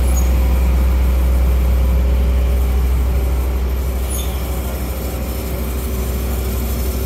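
Compressed natural gas being pumped from a CNG station dispenser through the filling hose into a car's gas tank: a steady low mechanical drone with an even hiss of gas flow.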